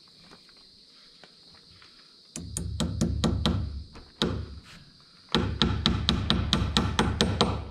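Claw hammer driving plastic cap nails through plastic sheeting into wooden wall framing: a run of about half a dozen sharp strikes starting about two seconds in, a short pause, then a faster run of about a dozen strikes.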